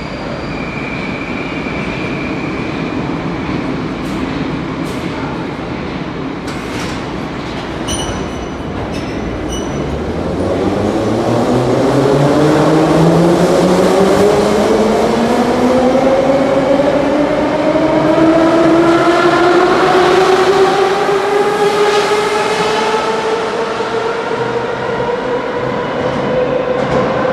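An 81-717/714.6 Moscow Metro train pulling away and accelerating. A few short clicks and pings are followed by its traction drive's whine, several tones together that climb steadily in pitch from about a third of the way in, over the rumble of the wheels on the rails.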